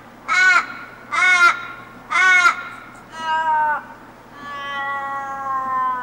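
A bird calling: four short, harsh arched cries about a second apart, then a longer cry and a long drawn-out call that sinks slightly in pitch at its end.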